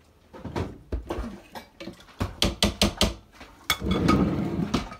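Kitchen clatter of utensils and cookware: scattered sharp knocks and clinks, with a quick run of them about two seconds in. Then about a second of steady rushing noise.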